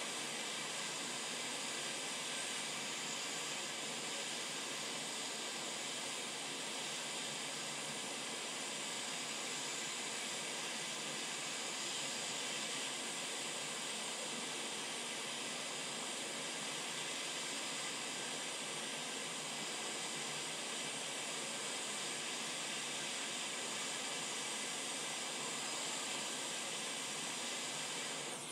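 Steady hiss of air from a hot air rework station nozzle, set to 60% airflow at 480 degrees, blowing on a surface-mount MOSFET to melt its solder while the chip is soldered back onto the board.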